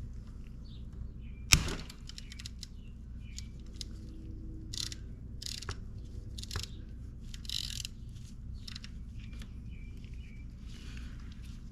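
Hand tools at work on the motorcycle's oil drain bolt: a sharp knock about one and a half seconds in, then scattered light clicks and brief scraping rustles. Faint short bird chirps are heard in the background.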